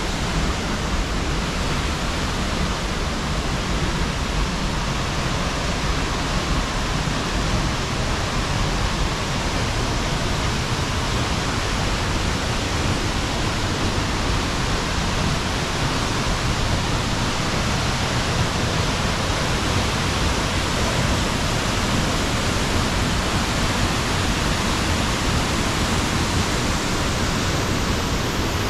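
Jōren Falls, a waterfall 25 m high and 7 m wide, falling into its pool: a steady, unbroken rush of water.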